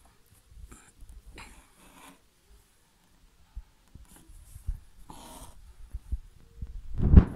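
Hand embroidery at close range: soft scrapes and rustles of thread drawn through fabric held taut in a hoop, with low handling bumps and one loud thump near the end.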